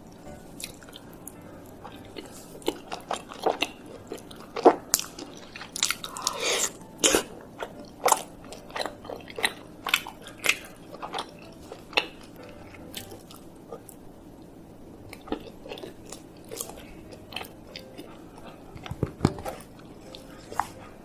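Close-miked biting and chewing of chocolate mochi: irregular sharp mouth clicks and smacks. They are busiest through the first half and thin out later, with a short burst again near the end.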